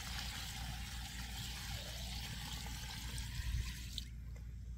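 Water pouring from a bucket into a bucket packed with comfrey and dandelion leaves, a steady stream that tails off near the end.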